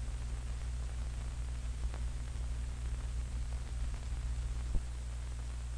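Steady low hum and hiss of an old 16mm film's optical soundtrack between narration, with a faint pop about two seconds in and another near the end.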